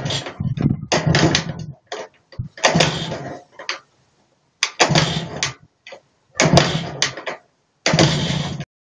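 Izh Planeta 2's single-cylinder two-stroke engine firing in five short bursts with silent gaps between, on its first starts after a new piston and rings following 25 years seized.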